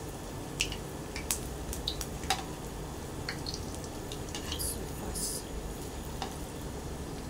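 Flour-battered jackfruit pieces deep-frying in oil in a metal wok, a steady sizzle, with a slotted metal spatula clinking and scraping against the pan every so often.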